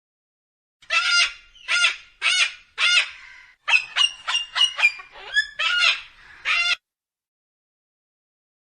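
A bird calling: four separate harsh calls, then a quicker run of about eight shorter calls, stopping abruptly near the end.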